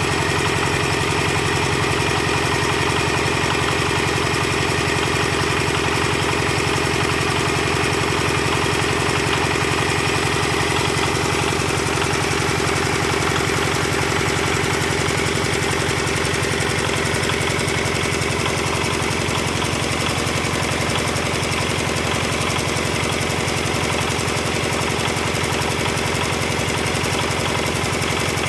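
Engine of a hand-crank-started concrete-block press machine running steadily at an even speed.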